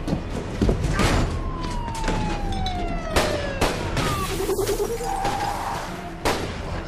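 A police siren wailing and falling in pitch, cut through by several loud sharp bangs: gunshots.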